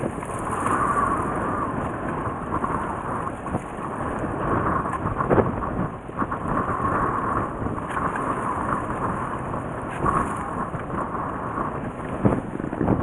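Wind buffeting the microphone aboard a fishing boat: a loud, steady rumbling rush that swells and eases in gusts, with a few sharper knocks.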